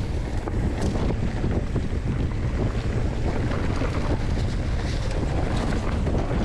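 Wind buffeting the microphone over the rumble of mountain bike tyres rolling fast on a dry dirt trail strewn with leaves, with small clicks and rattles from the bike.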